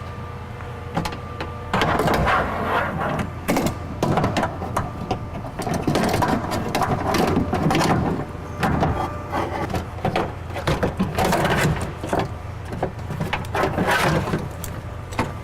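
A folded metal window regulator rattling, scraping and clanking against the door's sheet metal as it is worked into the door cavity, in irregular knocks and scrapes. A low hum runs underneath.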